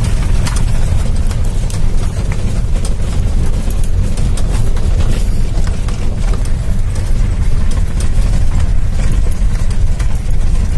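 Off-road 4x4 driving slowly over river stones, heard from inside the open cabin: a steady heavy engine and drivetrain rumble with frequent irregular knocks and rattles as the tyres crunch over rocks and the body jolts.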